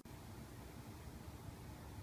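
Faint steady background hiss with a low rumble: room tone, with no distinct event.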